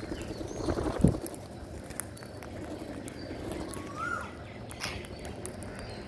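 Rose-ringed parakeets pecking rice grains close to the microphone: scattered sharp clicks, with a dull thump about a second in. A few short bird chirps, the clearest a quick rising-then-falling call about four seconds in.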